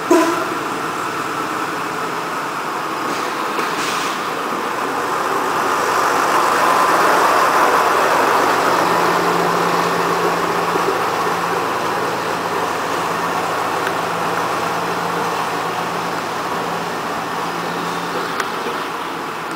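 Small narrow-gauge park railway diesel locomotive and its open passenger cars running past. The running noise swells to its loudest about seven seconds in, and a steady low engine hum carries on from about nine to eighteen seconds. A sharp clank comes right at the start.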